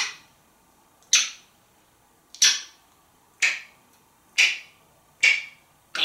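African grey parrot making a string of short, sharp pops or clicks with its beak and mouth, about one a second.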